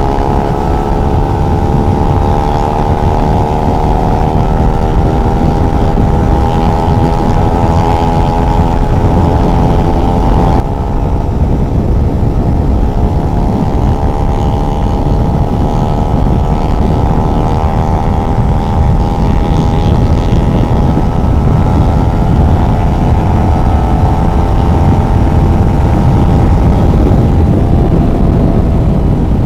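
Motorcycle engine running under way, with wind rumbling heavily on the microphone. The engine note climbs slowly as the bike gathers speed, breaks off abruptly about ten seconds in, climbs again, and drops near the end as the rider eases off.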